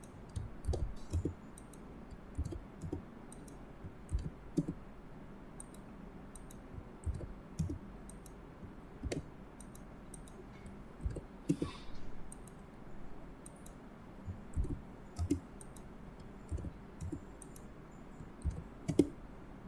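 Irregular clicks of a computer mouse and keyboard, about one or two a second, some with a soft low thump.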